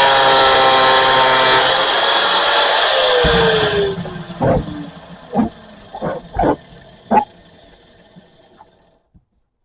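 Angle grinder cutting PVC pipe, then switched off about four seconds in, its whine falling as the disc spins down. Five or six sharp knocks follow as the pipe is handled.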